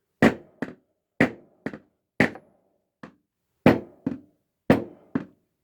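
Hammer tapping fret wire into the slots of a guitar fretboard: sharp metallic taps, mostly in pairs of a firm hit followed by a lighter one, about a pair a second with a short pause midway.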